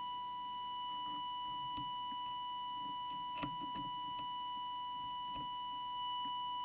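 Steady, unbroken test tone from an audio oscillator, used to drive the CB transmitter while its FM deviation is set. A few faint clicks come about halfway through.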